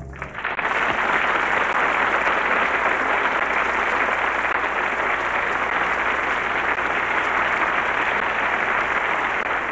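Studio audience applauding, swelling up within the first second as the music stops and then holding steady.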